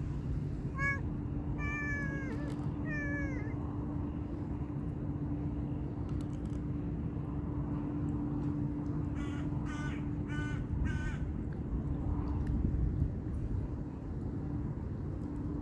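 A cat meows three times early on, each call falling in pitch. About nine seconds in, a crow caws four times in quick succession. A low steady hum runs underneath.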